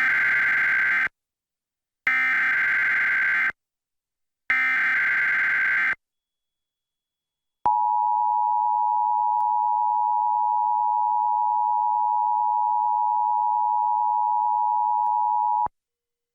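Emergency Alert System SAME header: three bursts of digital data tones, each about a second and a half long. After a short silence comes the EAS attention signal, a steady two-tone beep of 853 and 960 Hz lasting about eight seconds and cutting off shortly before the end.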